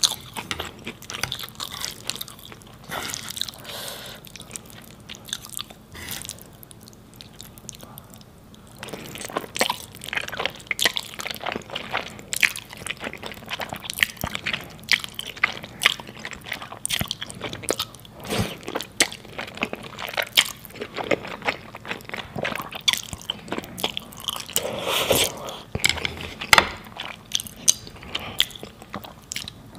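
Close-miked eating sounds of saucy instant noodles and cheesy pizza: wet chewing and biting with many short, sharp mouth clicks. There is a quieter stretch about a third of the way in and a fuller burst near the end.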